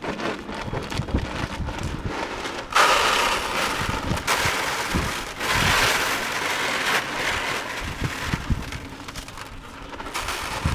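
Cattle feed being poured out, a rain-like rushing hiss that starts suddenly about three seconds in and tapers off near the end, with low knocks throughout.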